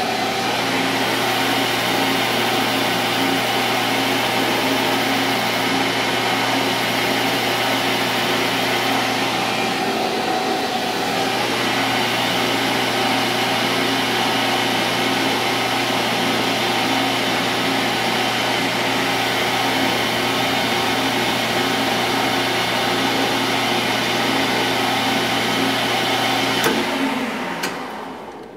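Metal lathe running steadily with a steel part spinning in its 4-jaw chuck, while abrasive is held against the turning part by hand to smooth it. Near the end there is a click and the lathe winds down to a stop.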